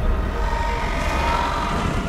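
Giant alien worm creature's rumbling call: a deep rumble under a held, droning tone that swells about midway.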